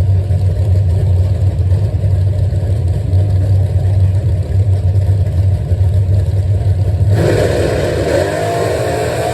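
A car engine running with a steady low drone; about seven seconds in the sound switches abruptly to a higher, wavering engine note.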